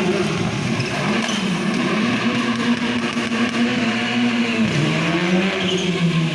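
Rally car engine running hard. Its pitch climbs gently, then drops sharply about four and a half seconds in.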